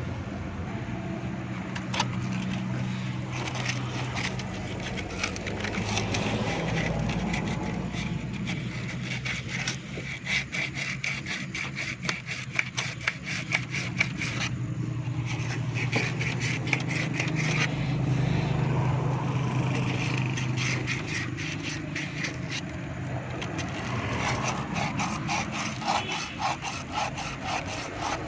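Quick, repeated scraping strokes as carbon deposits are scraped off a car battery terminal clamp, in runs broken by short pauses, over a steady low hum.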